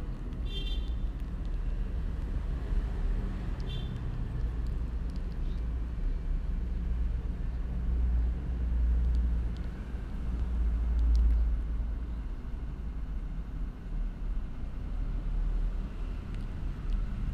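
Steady low rumble of background road traffic, swelling and easing, with two brief faint high tones in the first four seconds.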